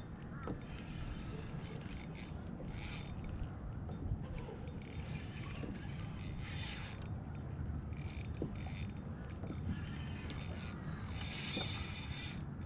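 Spinning reel clicking in short rasping bursts, several times, while a hooked fish is played on a bent rod, over a low steady rumble of water and wind.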